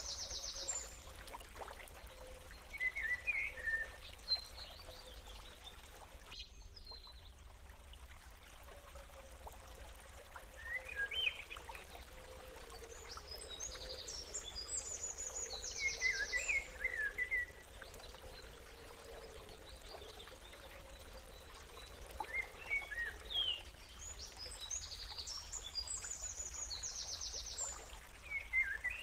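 Birds chirping, with groups of short high calls and fast trills coming back every several seconds over a faint steady background hiss.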